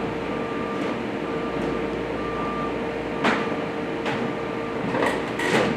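Steady fan hum with a faint constant whine, from the powered-on inverter MIG welder idling with its cooling fan running. A few faint clicks come in the second half.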